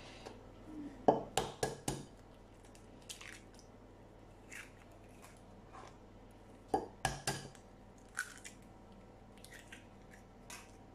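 Hen's eggs cracked one after another into a glass bowl: a quick run of sharp knocks about a second in, another about seven seconds in, with fainter clicks of shell and handling between.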